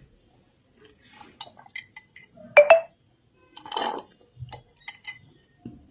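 Drinking glass of water clinking: a few light ringing taps, then a sharp double clink about two and a half seconds in, the loudest sound. A short noisy rush follows a little past halfway, while water is being drunk through a straw.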